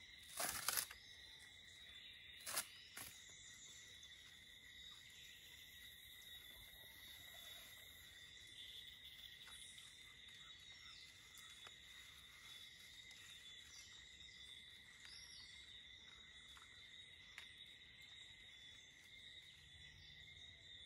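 A steady high insect drone at two pitches runs throughout. About half a second in, and twice more around the third second, short sharp crackling tears come from the dry coconut spathe being pulled apart by hand.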